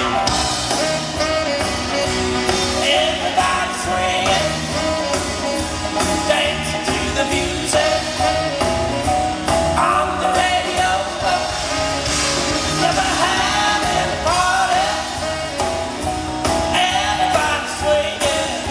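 A band playing a song, with a sung lead vocal over a steady drum beat.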